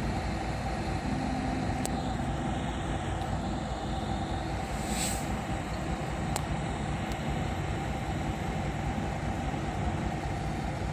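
A steady low hum like a running motor, with a couple of faint clicks and a brief hiss about five seconds in.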